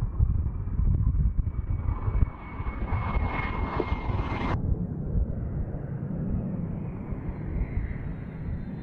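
Fighter jet engines at close range on the runway. First an F-22 Raptor, a deep rumble with a steady high whine that swells before cutting off abruptly about four and a half seconds in. Then an F-15E Strike Eagle lifting off, a steadier rumble with a faint high whine.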